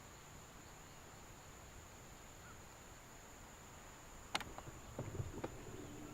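Steady high-pitched insect drone over faint outdoor noise. About four seconds in there is a sharp click, then a few lighter clicks and low thumps.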